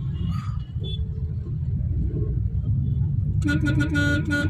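Steady low rumble of a car moving in city traffic, heard from inside the cabin. About three and a half seconds in, a vehicle horn gives a quick run of four or five short toots.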